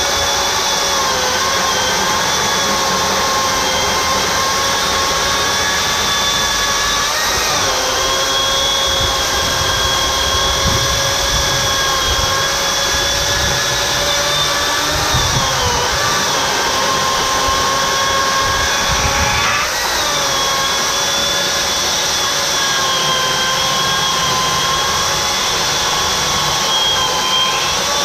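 Corded Makita electric chainsaw running under load, cutting steadily down through a thick log round: a continuous motor whine with the chain rasping through the wood. The pitch dips briefly three times as the saw is loaded harder.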